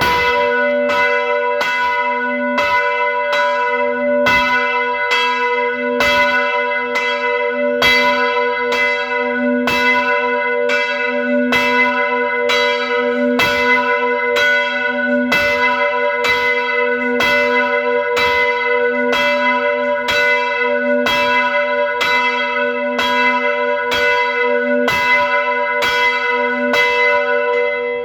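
Church bells ringing, struck in a steady, even rhythm of about two strokes a second. The strokes ring on and overlap into a sustained chord of bell tones.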